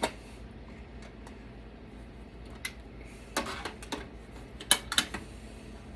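Plastic and metal clicks and knocks of a hard drive being worked loose from its drive caddy in a desktop computer: a sharp click at the start, then scattered clicks building to a cluster of rattling clicks, the two loudest about five seconds in.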